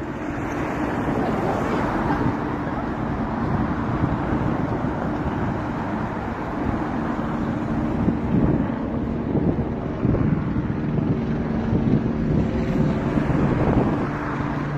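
Helicopter flying overhead, a steady drone of rotor and engine.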